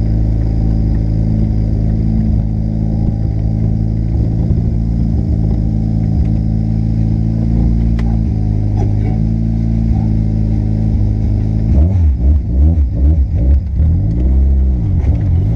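Turbocharged 4A-GE 20-valve engine of a Toyota KE70 Corolla wagon, heard from inside the cabin, running at a steady pitch. About three-quarters of the way through it is revved in several quick blips that rise and fall, the last one longer.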